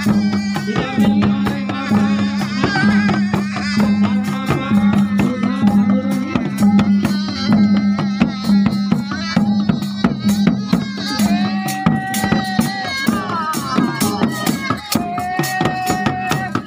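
Traditional West Javanese procession ensemble playing live: large hanging gongs hum steadily under fast, dense drum and percussion strokes. A held, wavering melody line comes in twice in the second half.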